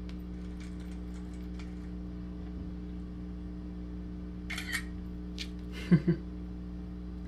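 Steady low electrical hum with faint taps and clicks from a smartphone being handled, and two short louder knocks about six seconds in.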